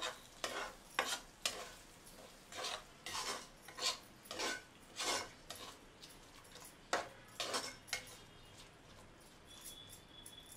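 Stainless steel spatula scraping and stirring eggs in a non-stick pot: about a dozen quick strokes at an uneven pace, stopping about eight seconds in. Faint sizzling underneath.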